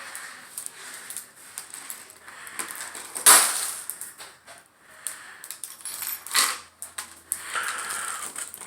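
Shattered glass tabletop still breaking up, its fragments crackling and ticking as they shift. Two sharp cracks, the louder about three seconds in and another about six and a half seconds in.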